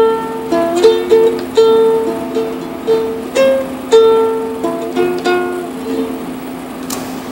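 Instrumental outro on a solo plucked string instrument: single ringing notes and short phrases over a steady held tone, thinning out and growing softer over the last two seconds, with a single click near the end.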